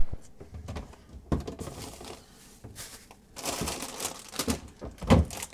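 Rummaging in an open refrigerator: a sharp click at the start, then scattered soft knocks, and a plastic produce bag rustling about three and a half seconds in, with a thump near the end.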